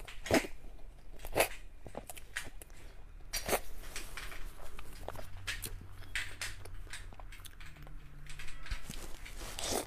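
Close-miked eating sounds: irregular wet mouth smacks and chewing on soft cream-topped sponge cake, with occasional small clicks of a spoon against the plate.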